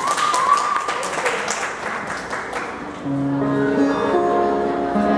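Scattered clapping and a few high voice-like calls, fading out. About three seconds in, an acoustic guitar starts picking single notes, the opening of a song.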